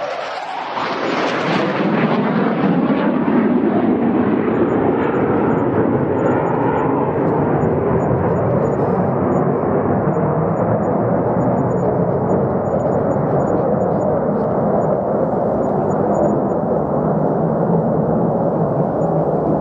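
Fighter jet engine roar, loud and continuous: its hiss is sharpest in the first couple of seconds, then gradually dulls as the high end fades while the deep rumble stays.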